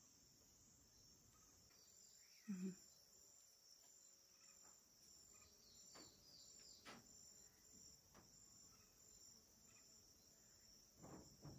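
Faint insect chirping, a steady high trill pulsing about twice a second, with a brief low hum about two and a half seconds in and a few soft clicks.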